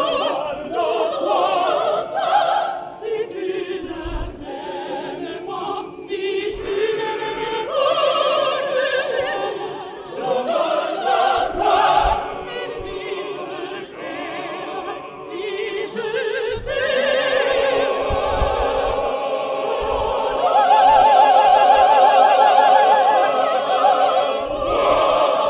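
Choir of opera singers singing, with sustained sung lines that swell to a loud, long-held passage with wide vibrato over the last few seconds.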